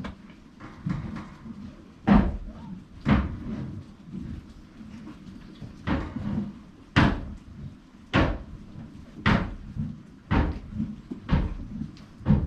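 A series of loud, sharp knocks, about one a second, with a short pause midway.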